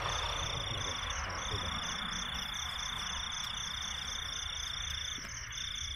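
Night insects calling: a steady high-pitched trill that breaks off briefly twice, over a fast, regular pulsing chirp.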